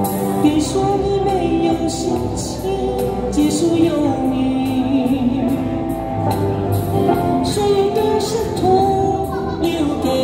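A woman singing a pop ballad into a handheld microphone over a backing track with a steady beat, both amplified through small portable speakers.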